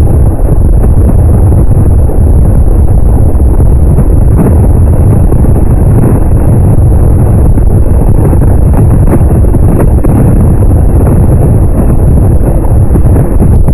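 Loud, steady wind buffeting on the microphone of a camera carried on a moving motorcycle at road speed, an unbroken rush of noise that drowns out any engine sound.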